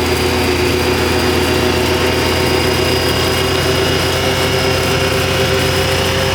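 Side-by-side UTV engine running at a steady speed while driving, heard from inside its cab: an even drone with a steady high whine over it.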